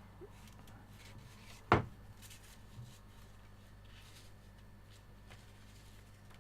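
A single sharp knock about two seconds in, with a couple of faint clicks and light handling around it, over a steady low hum.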